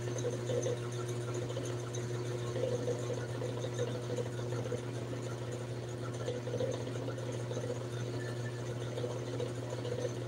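Steady low hum of a small motor, with a fainter steady higher tone above it.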